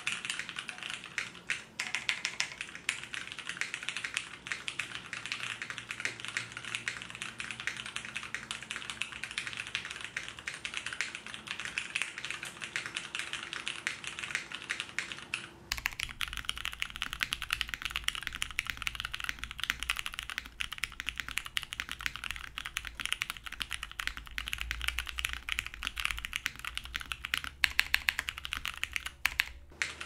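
Fast, continuous typing on an OTD 360C mechanical keyboard: vintage Cherry MX Clear tactile switches, lubed, on a top-mounted aluminum plate with no foam, under GMK keycaps. The first half is heard through a camera's built-in mic. From about halfway the sound comes through a Rode NT2A studio condenser mic, with a steady low background hum underneath, and a few strokes near the end are louder.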